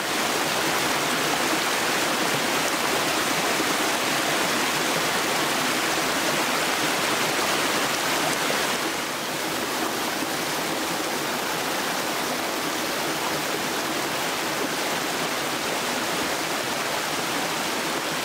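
A stream rushing steadily close by, a little quieter from about nine seconds in.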